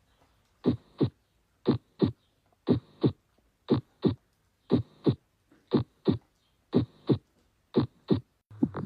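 Heart sounds: a regular lub-dub, eight beats at about one a second, each beat a pair of short sharp thuds with silence between beats.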